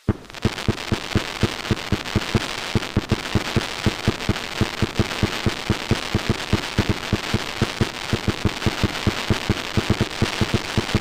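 Fireworks going off in a rapid barrage: a quick, even string of sharp bangs, several a second, over a dense crackle, starting suddenly.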